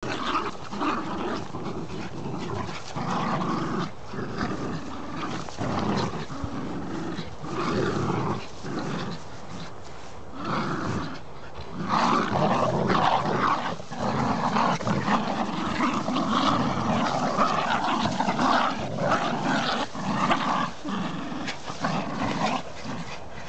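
Dogs growling in rough play, in repeated bouts that grow louder and more continuous about halfway through as they tug at a toy. It is play growling, which comes with the pulling.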